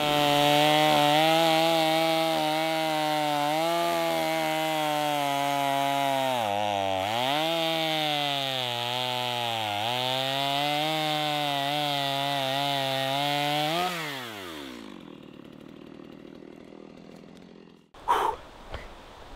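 Two-stroke gas chainsaw running at high revs while cutting deadfall and brush. Its pitch dips twice as the chain bogs down in the wood, then about three-quarters of the way through the engine winds down and the sound fades away.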